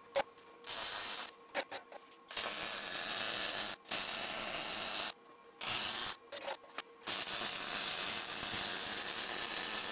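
Wire-feed welder's arc crackling on steel plate in a string of welds: runs of one to three seconds with short stops and a few quick stutters of the arc between them, the last run the longest.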